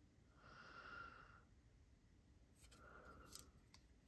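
Near silence: faint breathing, two soft breaths about two seconds apart, with a couple of light clicks near the end.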